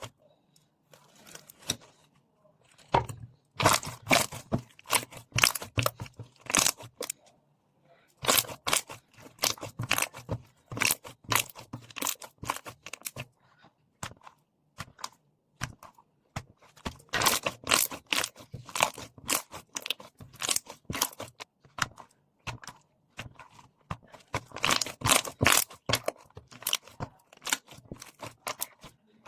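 Slime being squeezed and pressed by hand, making dense runs of sticky clicks and pops. These come in bursts of a few seconds with short quieter pauses between them.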